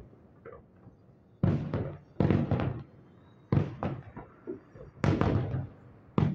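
Aerial firework shells bursting in a quick series of booms, about one a second, some in close pairs, each trailing off before the next.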